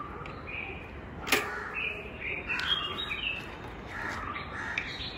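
A sharp metallic click about a second in, then a few lighter clicks, from working a bicycle's rear wheel quick-release and retention clips to free the wheel. Birds call in the background.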